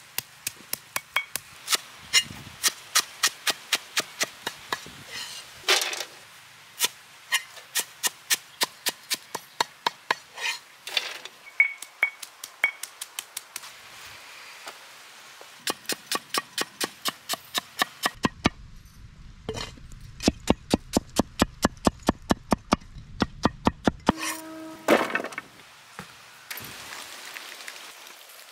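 Ginger and garlic being pounded with a hand-held stone on a flat stone grinding slab: a steady run of sharp knocks, about three a second, with a short pause about halfway and the pounding stopping a few seconds before the end.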